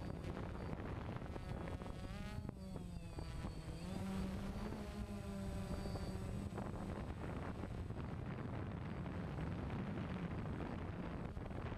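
DJI Phantom quadcopter's electric motors and propellers buzzing, heard from the camera on the drone itself, the pitch rising and falling as the throttle changes while it manoeuvres.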